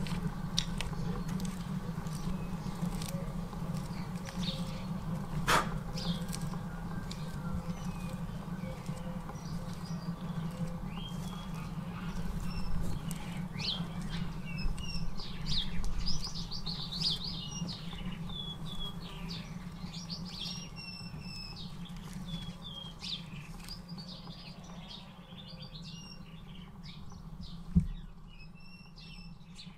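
Small birds chirping repeatedly in short quick calls over a steady low background rumble.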